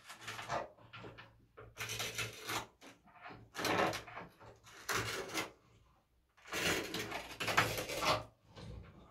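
Threaded water fitting being screwed into a tiled wall in several turns: bursts of scraping and grinding as it bears against the ceramic tile, whose glaze is flaking around the hole rather than cracking.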